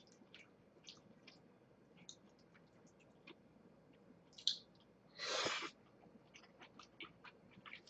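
Close-up eating sounds: soft chewing of chicken pasta with small wet mouth clicks and chopstick ticks. About five seconds in there is a short, louder breathy slurp as a mouthful of noodles is drawn in.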